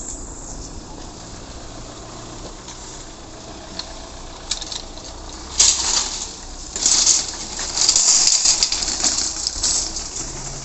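Metal wire shopping trolley being pulled free of a row of nested trolleys and pushed over asphalt, its frame and wheels rattling and clattering loudly from about halfway in.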